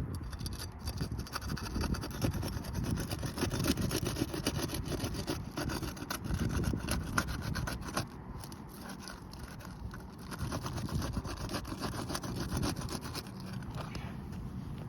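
Roof shingles being pried up and scraped loose, their seals breaking, with many small scrapes and clicks over a low rumble.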